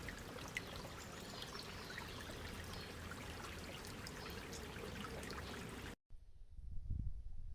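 Steady rushing of running water, a faint even hiss with small splashy ticks. About six seconds in it cuts off abruptly, and low rumbling noise follows.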